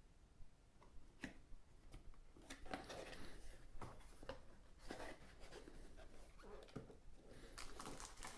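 Faint handling of a cardboard product box and its packaging: scattered light clicks, scrapes and rustles, busier after the first couple of seconds.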